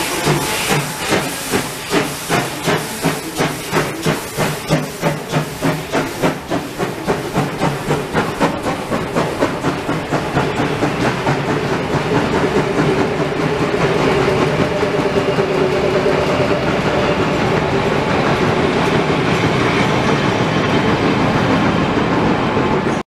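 Steam locomotive 431.032 pulling away with hard, even exhaust chuffs at about three a second, quickening slightly as it gathers speed. The chuffs then give way to the steady rumble and wheel clatter of the coupled railbuses rolling past. The sound cuts off abruptly near the end.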